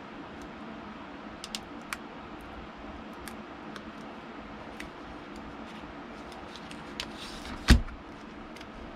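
Scattered small clicks and taps of hands and tools handling the console's parts over a steady low hum, with a brief scrape and then one loud knock near the end.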